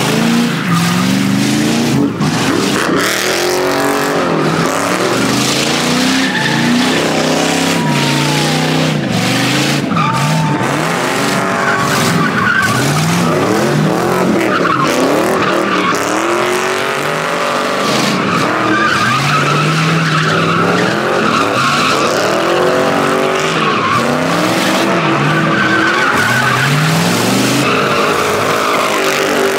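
A Fox-body Ford Mustang's engine revs up and down again and again while its rear tyres spin and squeal through donuts, the screech running steadily over the engine.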